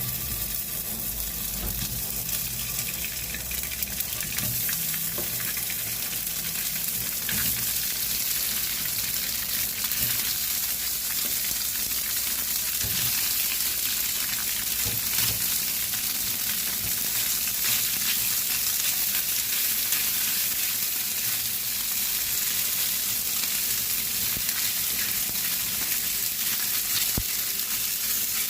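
Crab sticks frying in hot oil: a steady sizzle with fine crackling throughout.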